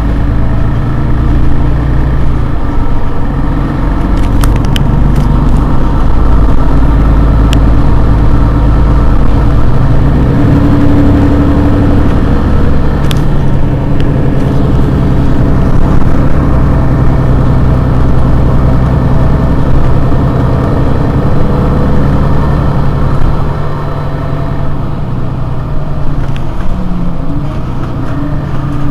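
Mercedes-Benz Citaro G C2 articulated bus's engine idling steadily while the bus stands still; its low note shifts about ten seconds in.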